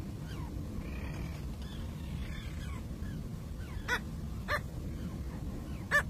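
Bridled tern calling: faint quick falling chirps about twice a second, then short, loud yapping calls about four and four and a half seconds in and again at the very end, over a steady low rumble.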